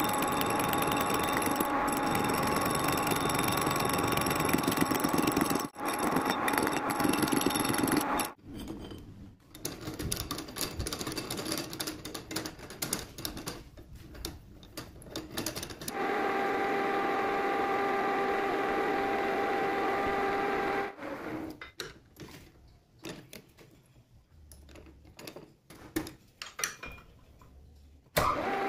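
Metal lathe running with a steady hum and whine for about eight seconds, then stopping; light metal clinks and handling knocks follow. The lathe runs again for about five seconds from the middle, stops with more clinking, and starts once more right at the end.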